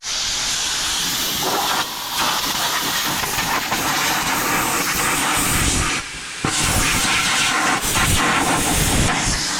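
Steady rush of air from a blower ('wind maker') blasting dust and chaff off a combine corn head. It dips briefly about two seconds in and again around six seconds in.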